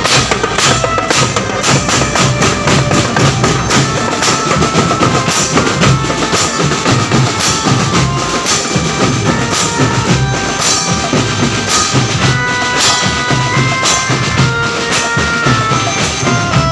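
Music with busy drumming, many strikes a second, and a melodic line of held notes that comes forward in the last third.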